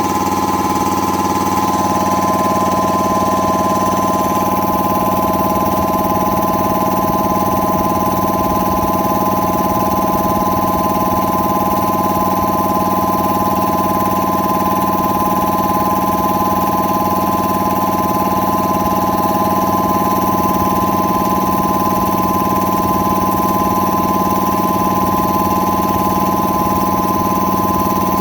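Air compressor's newly installed pump running steadily with a constant hum and whine, building pressure in the tank toward its shut-off point.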